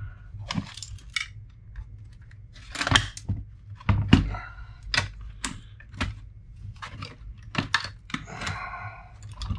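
Gloved hands handling and setting down the brittle, cracked plastic case and parts of an Epson Action Note 660 CX laptop: a string of irregular sharp clicks and knocks, with a short scraping rustle near the end.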